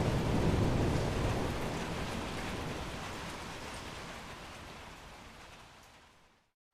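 Heavy rain falling steadily, with a low thunder rumble dying away in the first second or so. The whole sound then fades gradually to a brief silence near the end.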